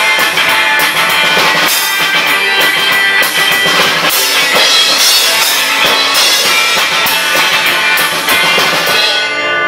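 Live instrumental rock band, electric guitars over a drum kit, playing the closing bars of a tune. Near the end the drums stop and a final chord is left ringing.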